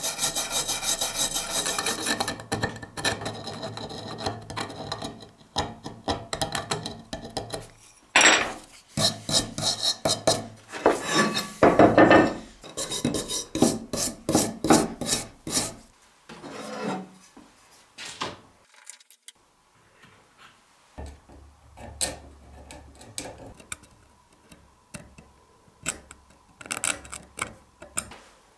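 Hand wire brush scrubbing back and forth over a rusty cleaver's steel and old wooden handle scales, in quick, even strokes at first, then louder separate strokes. After about sixteen seconds it gives way to quieter, sparser scratching.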